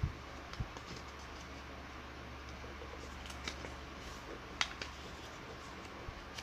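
A square of origami paper being handled and folded by hand. There are a couple of soft thumps near the start, then a few short, sharp crinkles as the paper is creased, the loudest about two-thirds of the way through, over a steady low hum.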